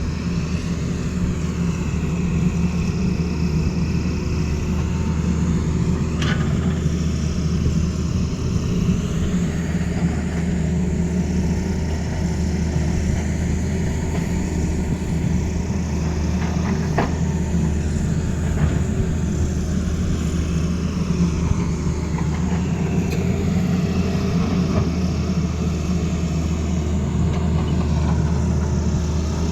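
Tata Hitachi excavator's diesel engine running steadily under work, with a fainter higher whine that rises and falls every few seconds.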